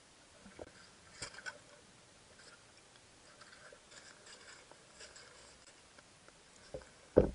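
Faint underwater sound picked up by a submerged camera: a low hiss with scattered soft clicks and ticks, and one sharp click near the end.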